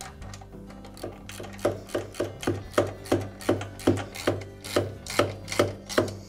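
Socket ratchet being swung back and forth to tighten a bolt, its pawl giving a short rasping run of clicks on each return stroke, about three strokes a second, starting about a second in.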